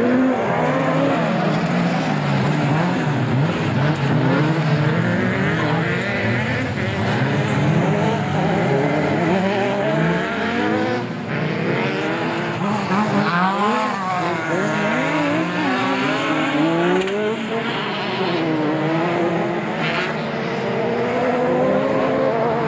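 Several dirt-track race cars (open-wheel buggies and a saloon) running hard, their engines revving up and down as they accelerate, lift and change gear, several engine notes overlapping at once.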